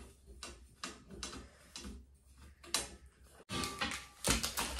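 Clicks and knocks of a white rack frame's rails being handled and fitted together: scattered sharp taps, then a louder, busier cluster of knocks in the last second and a half.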